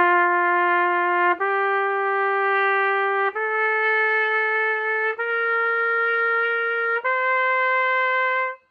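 Trumpet playing the concert F major five-note scale going up: written G, A, B, C, D. Each of the five notes is started separately, held steady for about two seconds and a step higher than the one before. The top note stops shortly before the end.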